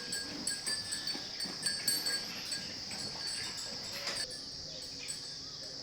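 Dairy cattle in their shed after feeding: scattered knocks, clicks and shuffling for about four seconds, then quieter, over a steady high-pitched hum.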